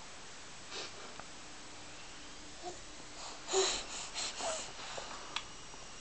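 Nine-month-old baby making breathy, wheezy noises: a short one about a second in, then a run of several in the middle, the loudest a little past halfway.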